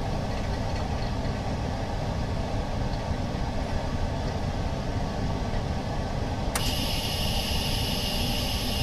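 Screen laminating machine running steadily with a low mechanical hum; about two-thirds of the way in, a steady high hiss starts suddenly and keeps going.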